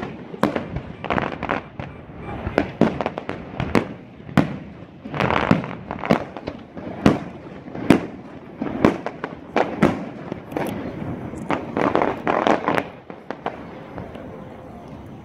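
Fireworks display: aerial shells bursting one after another, with sharp bangs and bursts of crackling, thinning out near the end.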